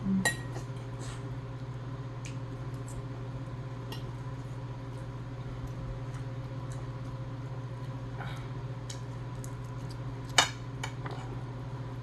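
Scattered light clinks and taps of cutlery and dishes during a meal, with one sharper clink about ten seconds in, over a steady low hum.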